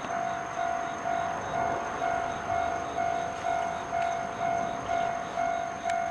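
Japanese railway level-crossing warning alarm ringing, one steady-pitched tone repeated evenly about twice a second.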